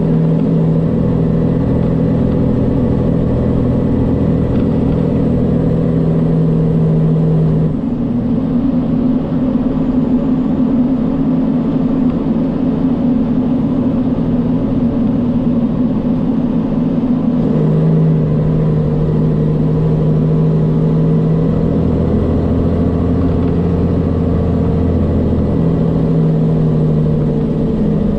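Heavy engine running steadily under load, its note shifting about eight seconds in and again about seventeen seconds in, with a deeper low hum for a few seconds near the end.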